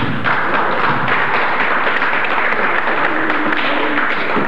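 Audience applauding: a dense patter of many hands clapping that starts suddenly and keeps up steadily.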